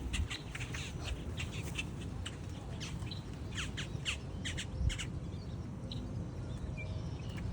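A flock of birds calling at a feeding spot: many short, high, falling chirps and squawks, scattered and overlapping, over a steady low rumble.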